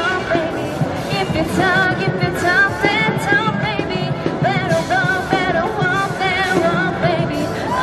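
Upbeat pop song with sung vocals over a steady beat.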